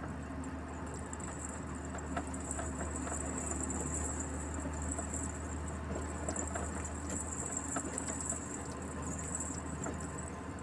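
Truck driving along a winding road, heard from the cab: a steady low engine drone under road noise, with scattered light ticks and rattles and a thin high-pitched hiss that swells and fades.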